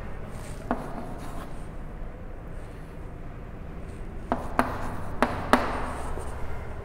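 Chalk writing on a chalkboard: faint scratching of the chalk across the board, with a sharp tap about a second in and four more taps in quick succession between about four and five and a half seconds in as the chalk strikes the board.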